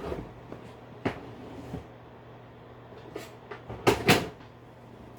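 Scattered clicks and knocks of hard plastic objects being handled and set down, the loudest a sharp double knock about four seconds in, over a steady low hum.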